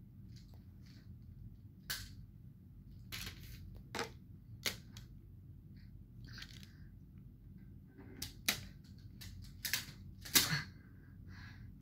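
Plastic toy building blocks clicking and knocking together as a toddler handles them: irregular sharp clicks, with several louder ones bunched together near the end, over a low steady hum.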